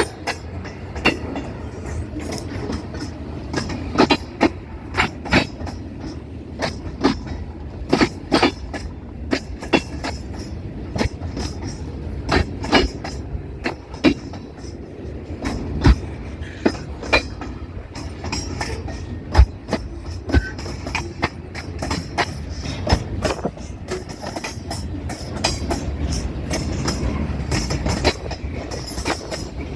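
Train rolling past: a steady low rumble with many sharp, irregular clacks of steel wheels passing over rail joints.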